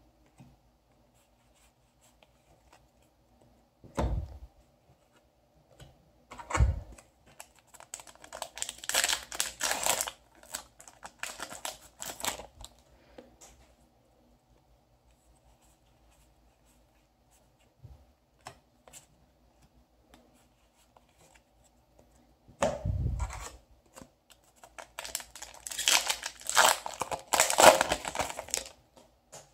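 Yu-Gi-Oh! foil booster packs being torn open and crinkled, with cards handled between. There are two spells of tearing and crinkling, one about a third of the way in and a louder one near the end, with a few soft thumps.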